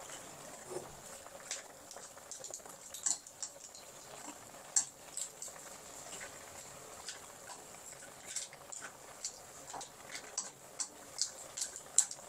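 Water spinach stir-frying in a hot pan: a faint steady sizzle with irregular sharp pops and ticks of spitting oil.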